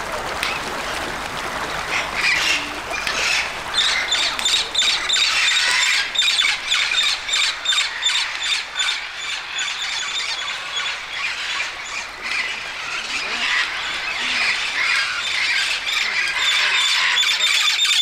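A crowd of parrots calling at once: shrill screeches and squawks overlapping without a break.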